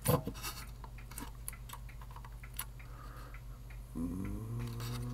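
Scattered small clicks and taps of parts and tools being handled on a workbench, over a steady low mains hum, with a brief low steady tone near the end.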